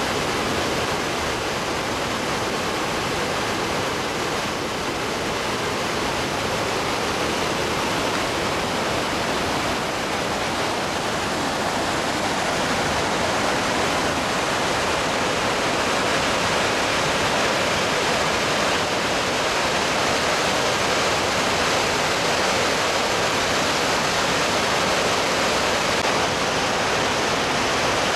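Waterfall pouring over rock ledges: a steady, even rush of whitewater that cuts in suddenly and grows a little louder in the second half.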